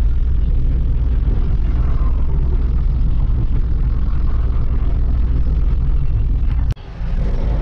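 Truck engine and road noise heard inside the cab while cruising at highway speed: a steady, deep drone. It breaks off abruptly for a split second about two-thirds of the way through, with a click, then carries on.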